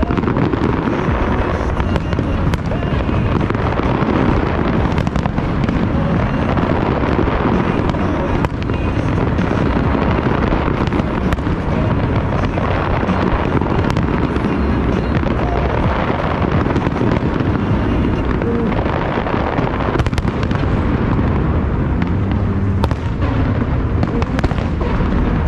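Fireworks display: a dense, continuous barrage of bangs and crackling, with many sharp reports scattered over a steady rumble.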